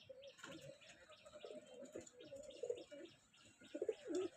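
Domestic pigeons cooing in a loft, several low calls overlapping, with louder coos near the end and fainter higher chirping behind them.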